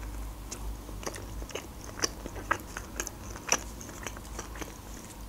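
A person biting into and chewing a mouthful of burger close to the microphone: a string of soft, irregular mouth clicks.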